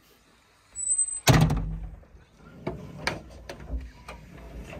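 Glass cab door of a JCB 3DX backhoe loader slammed shut with one loud bang about a second in, just after a short high squeak. Several lighter knocks and clicks follow.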